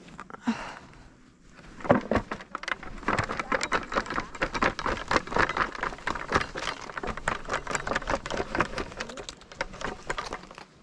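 Dense, fast crackling and rustling of dry cottonwood wood-chip bedding being disturbed. It starts about two seconds in and stops just before the end.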